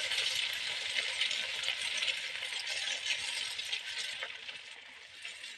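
An egg sizzling and crackling in hot oil in a metal kadai while a metal ladle stirs and scrapes it, with small clinks of metal on metal. The sizzle grows quieter over the last couple of seconds.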